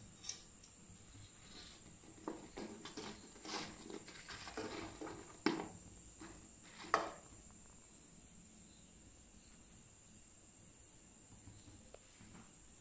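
Soft clatter and rustling as fried eggplant pieces are tipped from a wire spider strainer onto paper in a metal bowl, with two sharper metal clicks about five and a half and seven seconds in. After that only faint room noise remains.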